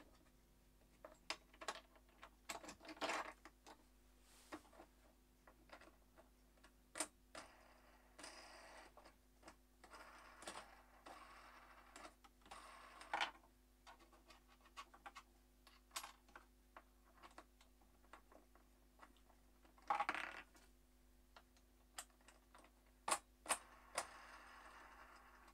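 Scattered clicks, knocks and short scrapes as the router table's fence is handled and fitted back onto the table top, over a faint steady hum.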